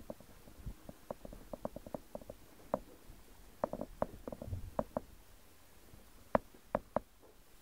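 Aquarium water gurgling and bubbling: irregular small pops come in uneven clusters, with a few sharper pops near the end.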